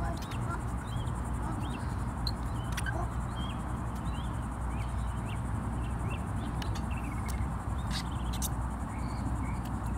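Insects trilling in a steady, high, continuous drone over a steady low rumble, with a few faint chirps and a few sharp clicks.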